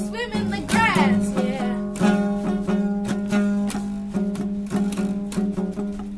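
Guitar music: notes plucked in a quick, even pattern over a held low note.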